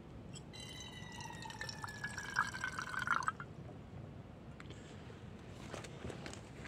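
Water poured into a pot to make coffee: a pitched, gurgling pour lasting about three seconds, followed by a few faint clicks near the end.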